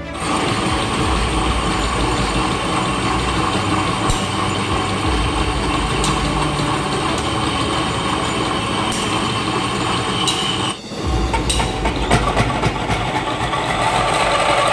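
Metal lathe running with its chuck spinning: a steady mechanical noise with a few sharp clicks, dipping briefly about eleven seconds in.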